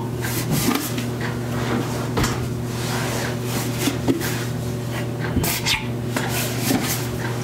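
Large plastic glue jugs handled and poured into a ceramic bowl: scattered soft rubbing and crinkling of the plastic over a steady low hum.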